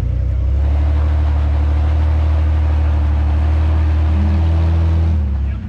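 Lifted Jeep Cherokee's engine running under load at steady revs as it climbs a rock ledge, dropping off about five seconds in.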